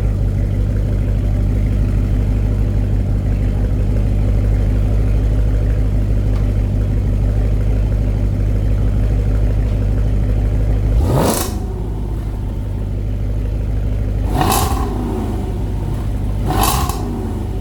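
Supercharged V8 idling steadily, then blipped three times about eleven, fourteen and sixteen seconds in, each rev rising sharply and falling back to idle.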